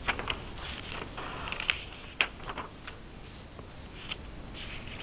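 A dozen or so soft clicks and brief rustles at uneven intervals over a faint steady hiss, the sharpest just after the start, at about a second and a half, and just after two seconds.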